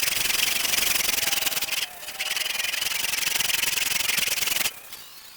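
A power tool sanding wood, probably teak: a loud, fast, gritty abrading noise. It breaks off briefly about two seconds in, resumes, then stops abruptly near the end, leaving faint clicks.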